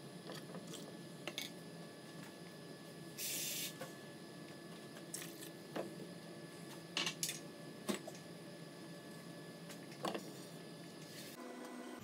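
Spatula stirring chicken in broth in a non-stick pot, clicking and knocking against the pot several times. There is a brief hiss about three seconds in.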